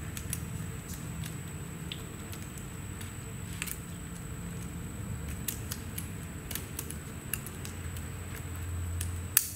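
Small clicks and scrapes of a metal snap ring being handled and fitted into its groove on a puller head's outer collar, over a steady low hum, with one sharper click near the end.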